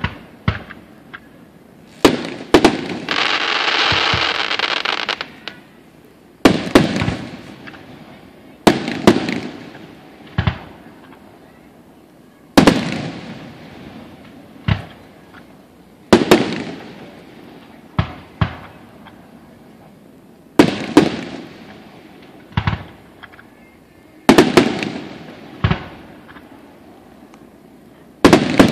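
Aerial fireworks shells bursting: sharp booms every second or two, often in quick pairs, each trailing off in an echoing rumble. A steady hiss runs for about two seconds starting about three seconds in.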